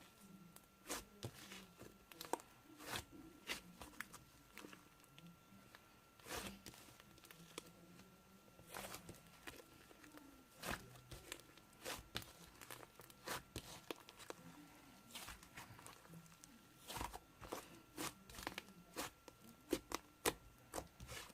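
Slime being squished and pressed by hand, giving irregular small pops and clicks.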